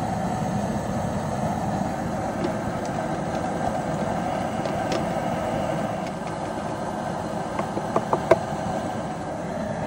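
Gas burner running steadily under a large pot of seasoned water coming to a full boil, with a few light clicks about eight seconds in.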